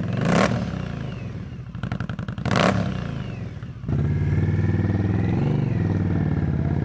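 Indian Scout Bobber's V-twin through a Jekill & Hyde aftermarket exhaust, idling and revved in two short blips. About four seconds in, it gives way to a steady, louder note as the bike rides by.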